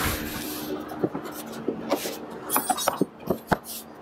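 Snowmobile's plastic side panel being slid back on and pressed into place by hand: plastic rubbing and scraping at the start, then scattered sharp clicks and knocks, with a short rasp about two and a half seconds in.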